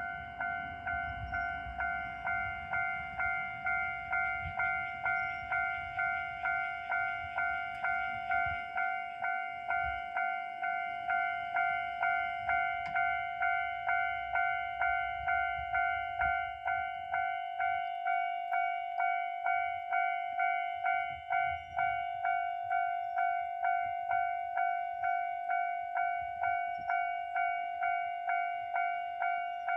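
Japanese level-crossing warning bell ringing in a steady repeating rhythm, about three rings every two seconds. A low rumble under it through the first ten seconds is the 1500-series diesel railcar running over the crossing.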